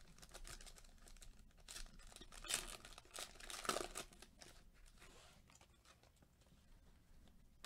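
Foil wrapper of a Panini Illusions basketball card pack being torn open and crinkled by hand, a few quick rips in the first four seconds. Fainter rustling of the cards being handled follows.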